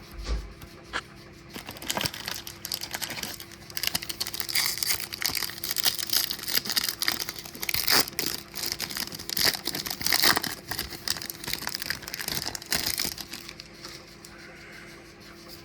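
Foil wrapper of a Topps baseball card pack being torn open and crinkled by hand: a dense, irregular run of crackles for about twelve seconds that dies down near the end.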